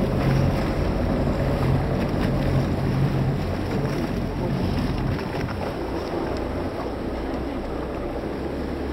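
Boat engine running steadily under wind buffeting the microphone and water rushing past the hull. The engine's note eases a little about five seconds in.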